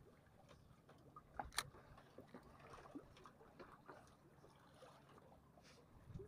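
Near silence, with a couple of faint short clicks about a second and a half in and a few fainter ticks after.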